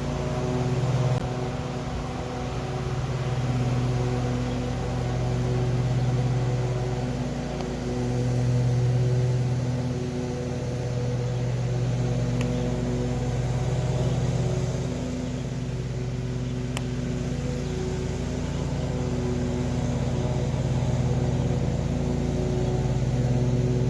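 Lawn mower engine running at a steady speed, its hum swelling and easing every few seconds.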